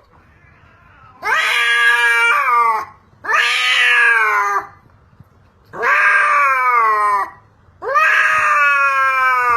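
A cat yowling: four long, drawn-out calls with short pauses between them, each sagging in pitch toward its end.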